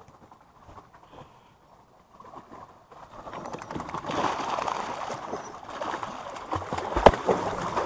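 A large dog going off a wooden dock into lake water and swimming alongside it, its paddling churning and splashing the water. The splashing starts about three seconds in and keeps up, with a single sharp knock near the end.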